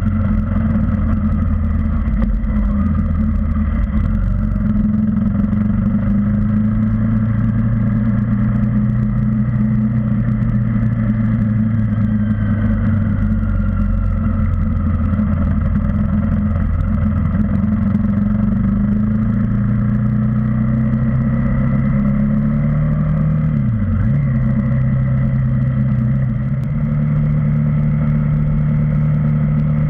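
KTM Duke 390's single-cylinder engine running steadily while riding, its pitch drifting gently up and down with the throttle. About 24 seconds in the revs drop sharply for a moment and come back up, then hold at a higher pitch.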